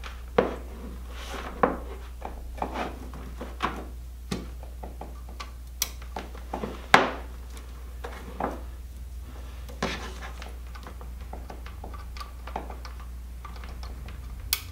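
Ethernet cables being handled and their plugs pushed into a gigabit network switch: scattered plastic clicks, taps and knocks, with the sharpest click about seven seconds in, over a steady low hum.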